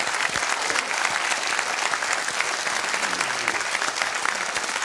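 Studio audience applauding, many hands clapping at once at a steady level.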